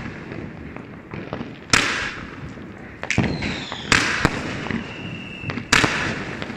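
Aerial fireworks going off, a sharp bang every second or so, about five in all, over continuous crackling of sparks. A brief whistle near the middle.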